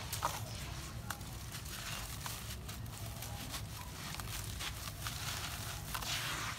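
Hands crumbling and squeezing lumps of gritty, cement-like sand in water: a run of small irregular crunches and crackles as the grains break apart, over a low steady hum.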